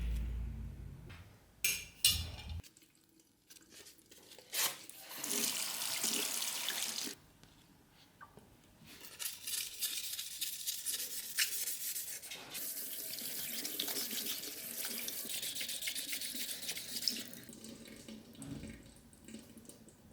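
Water running from a tap into a sink in two stretches, a few seconds and then about eight seconds long, with a few sharp clicks shortly before the first.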